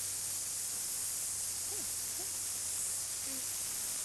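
Steady high-pitched hiss with a faint low hum underneath. A few faint, brief calls that rise and fall in pitch come about two seconds in and again a little after three seconds.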